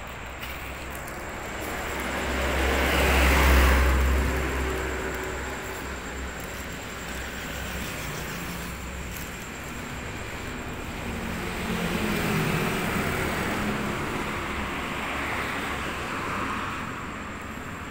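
Road traffic passing on the street: one vehicle goes by with a low rumble, loudest about three to four seconds in, and more vehicles swell past around twelve seconds in and again near the end.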